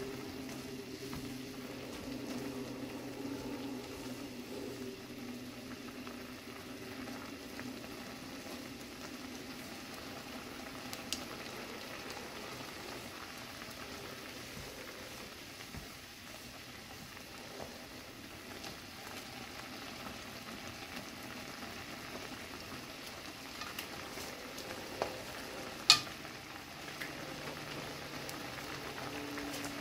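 Instant jjamppong noodles boiling in a spicy broth in a frying pan, a steady bubbling hiss, stirred with wooden chopsticks in the first part. A few sharp taps stand out, the loudest about 26 seconds in.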